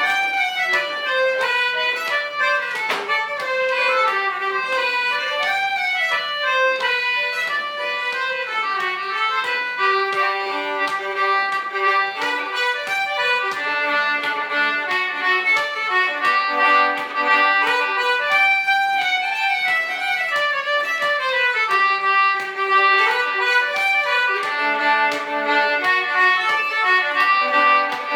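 A fiddle plays a lively instrumental folk tune, with a second instrument accompanying in held lower notes.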